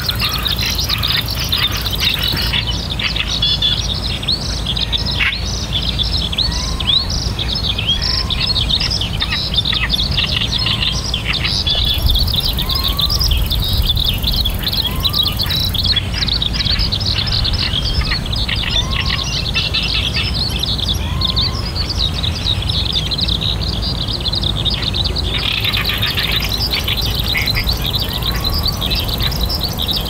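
Dense chorus of high, quick chirping from birds and insects, with a faint short rising call repeated every two to three seconds, over a steady low rumble.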